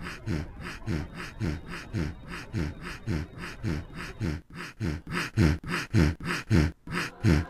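A fast, even series of deep thumps, about three a second, each dropping in pitch, growing louder in the second half.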